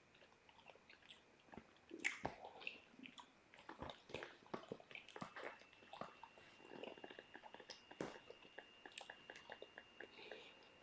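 Someone chewing candy close to the microphone: faint, irregular wet clicks and mouth smacks, with a sharper click about two seconds in. A thin, steady high tone comes in about halfway through.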